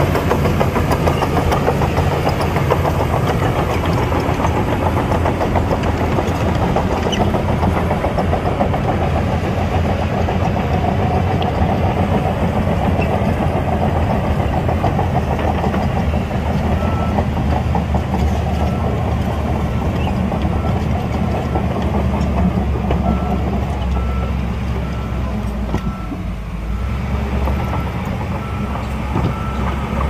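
Heavy diesel engines of earthmoving machinery running steadily. From about halfway through, a regular high-pitched beeping repeats at an even pace, and the engine sound shifts a few seconds before the end.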